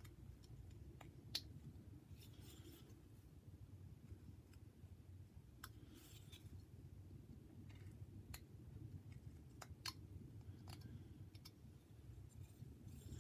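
Whittling knife making small cuts in a wooden figure: faint, short scrapes of the blade through the wood and a handful of sharp little clicks, over a low steady hum.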